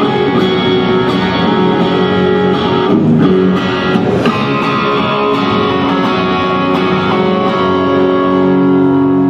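Electric guitar strumming chords and letting them ring, played through the Avid Eleven Rack's Matchless DC30 amp model, with the tone shaped only from the guitar's pickup selector and volume.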